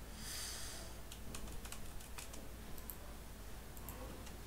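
Computer keyboard typing: scattered, irregular key clicks, with a short hiss in the first second, over a faint steady low hum.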